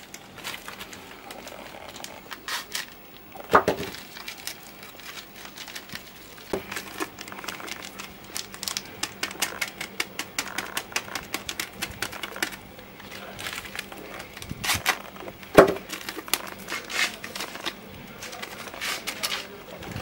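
Small paper sachets of ground cinnamon rustling and crinkling as they are torn open and shaken out over a plastic bucket, with a patter of rapid light ticks. A few louder knocks come about 4 s in and twice around 15 s.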